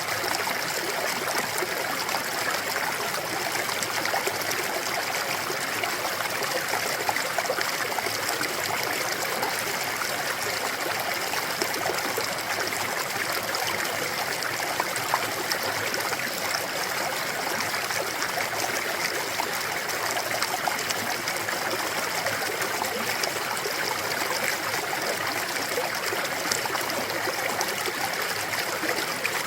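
Clear mountain stream running steadily over rocks, a continuous rushing and trickling of water.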